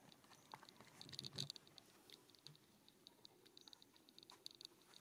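Near silence with faint, quick high clicks in short irregular runs.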